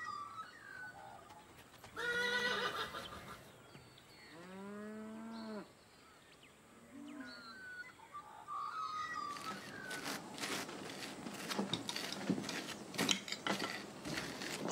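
Cattle mooing, a shorter call and then a longer one that rises and falls, with short chirping calls in between. From about nine and a half seconds in, a busy run of light clinks and clatters of dishes and cutlery.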